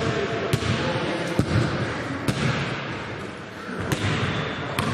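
A basketball being dribbled on an indoor court, bouncing about once a second, over a steady background of hall noise.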